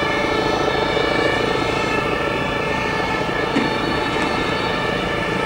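A Rosenbauer WaWe 10000 police water cannon truck's diesel engine runs steadily while the truck stands still. It makes an even rumble under several high, steady whining tones.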